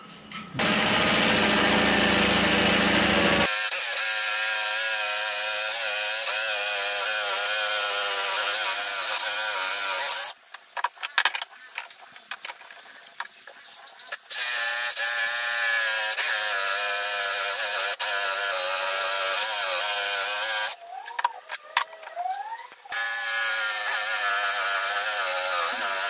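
INGCO cordless jigsaw cutting a ceramic tile, its motor whine wavering in pitch as the blade works through the tile. It stops twice, about ten and twenty-one seconds in, for a few seconds of clicks and handling before cutting resumes.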